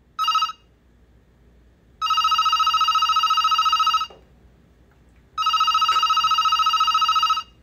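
Telephone ringing with an incoming call. A short ring comes first, then two long rings of about two seconds each, a steady fast-pulsing tone.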